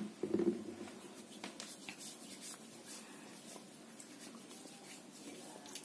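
Faint rubbing and patting of hands on the face, spreading loose baby powder over the skin, with a few soft ticks among the rustling.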